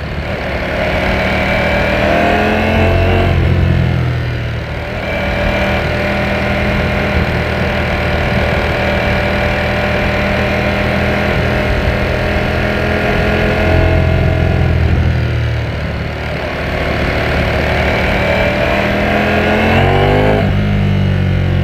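Ducati Panigale V4S's V4 engine under way, revving up through the gears: the pitch climbs, falls away as the rider shifts or eases off, holds steady for several seconds, then climbs again. A sharp break in the pitch comes near the end.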